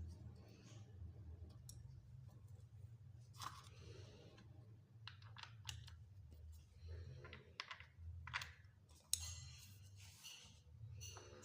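Faint, irregular clicks and light scrapes of small parts being handled, over a low steady hum.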